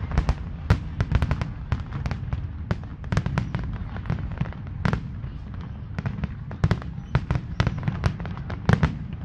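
Aerial fireworks display: shells bursting in quick, irregular succession, several sharp bangs a second over a continuous low rumble.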